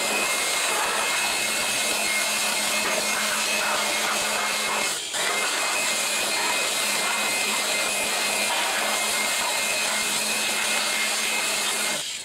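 Handheld electric dust blower, the kind used to blow dust out of computers, running steadily and blowing leftover wash water out of a wet car engine bay. It drops out for a moment about five seconds in, then runs again until it is switched off at the end.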